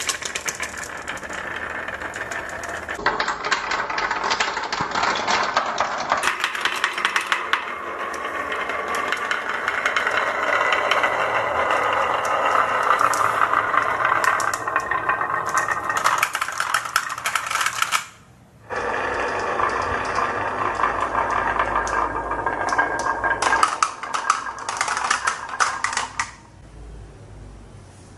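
Marbles rolling and clattering down a marble-run track: a dense rattle of clicks. It breaks off briefly about two thirds of the way in and stops near the end.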